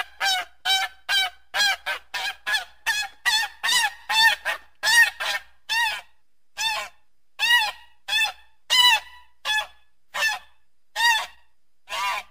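Goose honking: a long series of short, loud honks, each rising and falling in pitch. They come quickly at first, two or three a second, then slow to about one a second.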